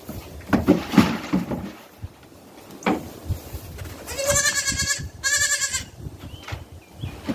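Baby goat bleating twice, high-pitched and quavering, each call under a second long, about four and five seconds in. Soft thumps and rustling, loudest in the first couple of seconds, and a single knock around the middle.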